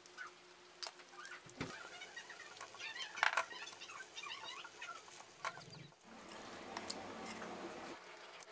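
Chickens clucking in the background, short wavering calls repeated for a few seconds, with a sharp clack about three seconds in and a steady hiss near the end.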